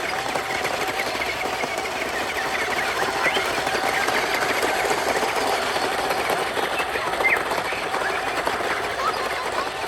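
Small electric gear motors of RC construction toys running steadily, a fast, even mechanical rattle with no pauses.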